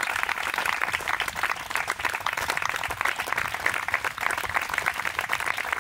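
Audience applauding steadily, many hands clapping without a break.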